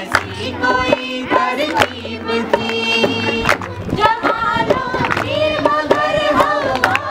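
A mixed group of men and women singing a protest song together in unison, with hand claps.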